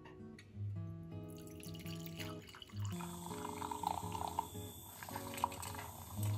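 Coffee pouring from a drip coffee maker's glass carafe into a ceramic mug. It begins about a second in and grows stronger after about three seconds, over background acoustic guitar music.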